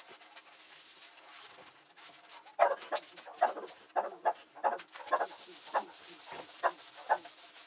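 Cloth being rubbed over a linseed-oiled wooden benchtop: a soft wiping hiss, then from about two and a half seconds in a run of short squeaks, about two a second, with the back-and-forth strokes.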